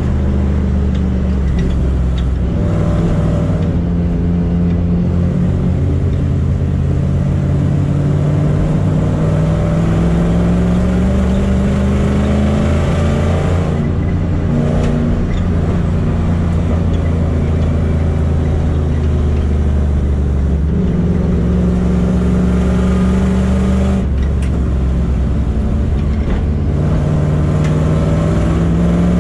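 Rover SD1 race car's engine heard from inside the cabin, running hard with its pitch climbing in long rising sweeps and dropping back several times at gear changes and lifts.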